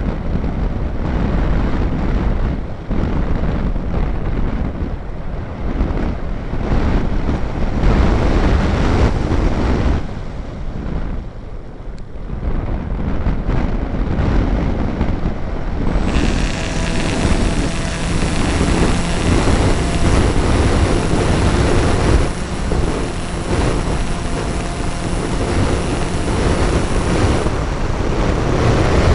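Wind buffeting the onboard microphone of an EasyStar FPV model plane in flight. About halfway through, a steady hum from its electric pusher motor and propeller comes in under the wind.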